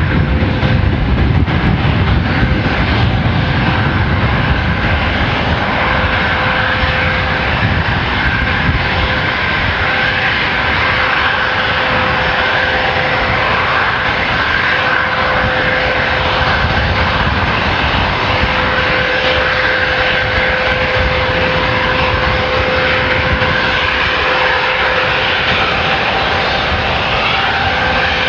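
Bombardier Global 5000's two rear-mounted Rolls-Royce BR710 turbofans running at low taxi power: a loud, steady jet whine with a held tone, and more low rumble in the first few seconds.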